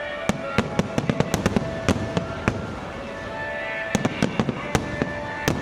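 Fireworks going off in a rapid, irregular run of sharp bangs and pops, several a second, with a few steady held tones underneath.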